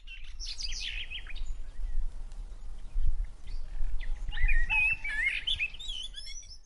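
Wild birds chirping and calling in quick, rising and falling notes, with a busy burst at the start and another in the second half, over a low rumble.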